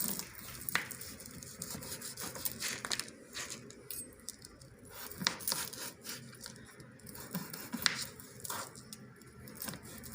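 Knife cutting cooked chicken into pieces on a cutting board: irregular short knocks of the blade against the board, with soft slicing and scraping between them.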